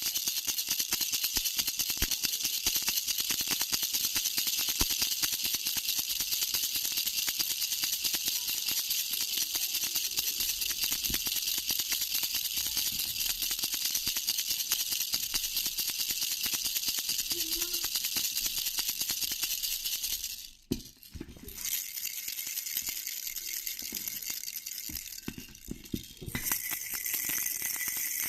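A jhunjhuna, a baby's bell rattle, shaken continuously in a fast, dense jingling rattle, stopping briefly about two-thirds of the way through before carrying on.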